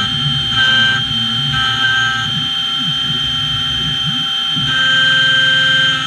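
Small CNC mill cutting aluminum with an end mill: the spindle runs with a steady high whine, and a higher cutting tone comes and goes several times as the tool moves into and out of the cut. The axis stepper motors sing in low tones that glide up and down in pitch as the axes speed up and slow down.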